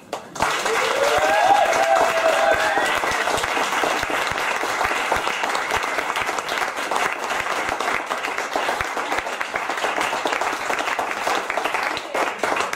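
Audience applauding loudly after a poem ends, with a few rising whoops from the crowd in the first few seconds.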